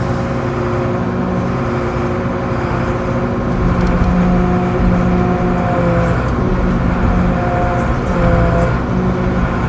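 Volvo TD61ACE diesel engine of an Åkerman H7Mc wheel excavator running steadily, heard from inside the cab, its note dipping and rising slightly a few times as the boom and bucket are worked.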